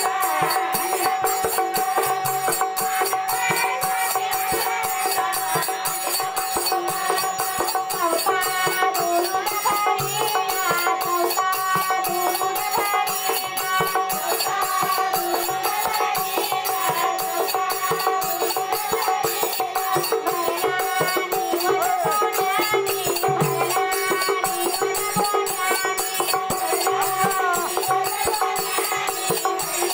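Women singing a Marathi aradhi devotional song to the goddess Ambabai, accompanied by a harmonium and a double-headed hand drum. A held harmonium note runs under the voices, and small percussion keeps a steady beat.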